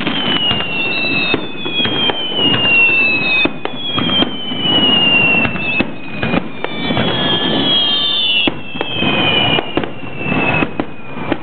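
Fireworks going off in a rapid continuous barrage: many sharp bursts and crackles, with long whistles gliding down in pitch layered over them.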